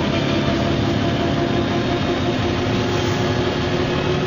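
MCW Metrobus double-decker's Cummins diesel engine running steadily as the bus drives along, a continuous drone with a whine held over it.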